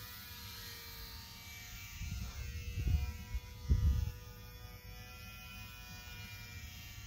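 The small electric motor and propeller of a Parkzone UMX Pole Cat RC plane in flight, a steady buzzing whine whose pitch drifts slightly. Wind gusts rumble on the microphone about two to four seconds in.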